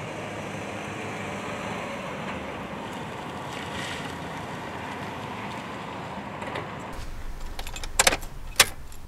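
A car driving up and pulling over, its engine and tyres a steady rushing noise. Then, inside the car, a key jangles on its ring in the ignition, with two sharp clicks a little over half a second apart near the end.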